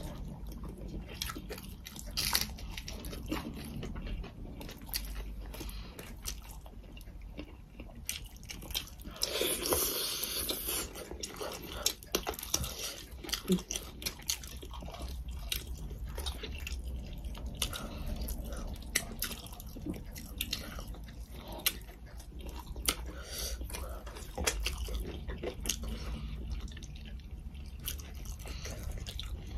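Close mouth sounds of people eating chicken curry and rice by hand: wet chewing, biting and smacking with many small clicks, and a louder hissy stretch about ten seconds in.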